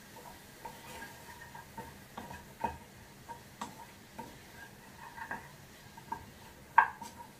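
A utensil stirring steamed broccoli and cauliflower in a pan of butter, making irregular light taps and clicks against the pan, with one louder knock near the end.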